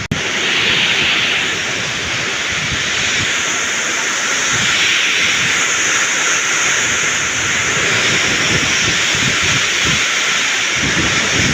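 Heavy rain pouring steadily, with strong wind gusting and buffeting the microphone in irregular low rumbles.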